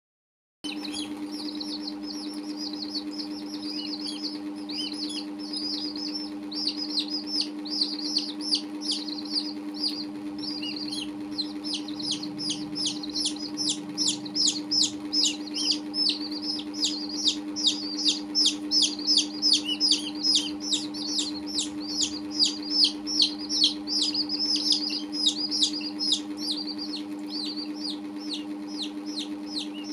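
Baby chicks and a duckling peeping: short, high-pitched, falling peeps. They are scattered at first, then from about halfway through come in a steady run of about three to four a second. A steady low hum runs underneath.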